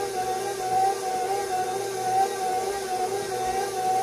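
Electric tilt-head stand mixer running on its lowest stir speed, kneading a stiff bread dough with the dough hook. The motor whine is steady, wavering up and down in pitch in an even rhythm, about once or twice a second, as the hook drags through the dough.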